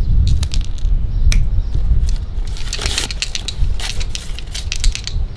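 Dice rattling in a cupped hand and clattering onto a concrete step: a scatter of sharp clicks, bunched together near the middle and again toward the end, over a low steady rumble.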